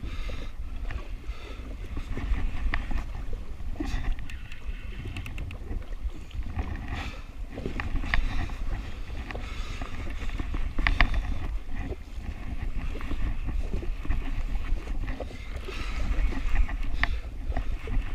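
Wind buffeting the microphone as a steady low rumble, with choppy waves slapping and splashing against a jet ski's hull in irregular sharp hits.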